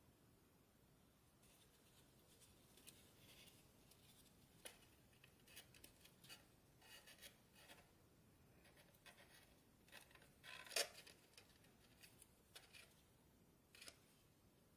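Faint rustling and crinkling of paper being folded and creased by hand on an origami model, in scattered short bursts, the loudest a little past the middle.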